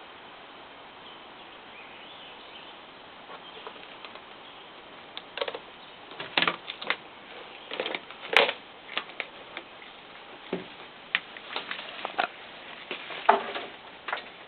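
Footsteps through dry brush and undergrowth: irregular snaps and rustles starting about five seconds in, the loudest around the middle and near the end.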